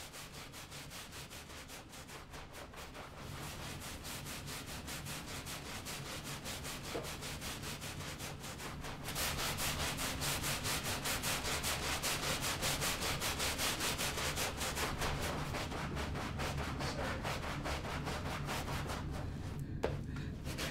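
Scrubbing a soapy floor by hand with a cloth: a steady run of quick back-and-forth rubbing strokes, growing louder about nine seconds in.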